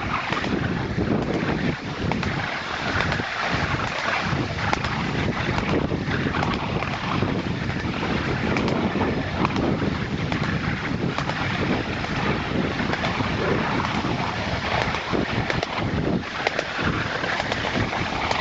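Miniature railway train running along the track: a steady rumble of wheels on rail with scattered irregular clicks, under a rush of wind on the microphone.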